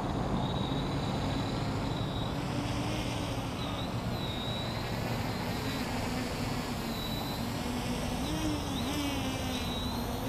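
Team Black Sheep Discovery quadcopter's motors and propellers buzzing as it flies in and hovers, the pitch wavering and dipping with the throttle, most noticeably near the end, over a steady rushing background.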